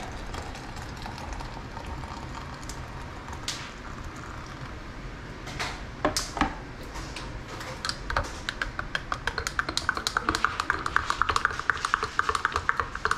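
Metal teaspoon stirring in a ceramic mug: a fast run of clinks against the side of the mug with a ringing tone, starting about eight seconds in. A few knocks come before it, about halfway through.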